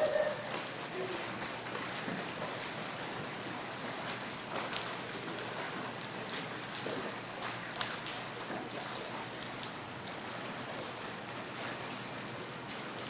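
Steady rain falling on an outdoor pool and its wet deck: an even hiss with many small sharp drop ticks.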